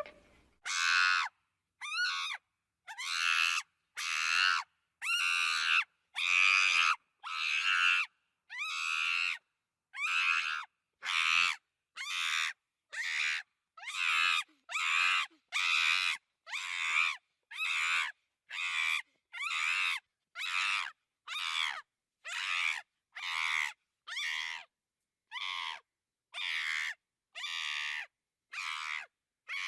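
Monkey giving a long run of short, high-pitched calls, about one a second, each call separated by silence.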